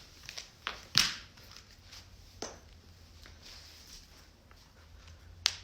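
Joints cracking: a few sharp pops, the loudest about a second in, one more midway and another near the end.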